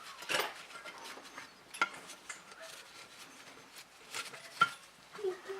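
Valve spring compressor tool being fitted over a valve spring and retainer on a cylinder head: a few separate metal clicks and knocks as the tool's jaws are set against the metal.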